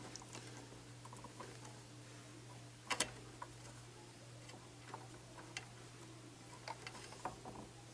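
Faint, scattered clicks and small rustles of electrical wires being handled and twisted together by hand, with one sharper click about three seconds in, over a steady low hum.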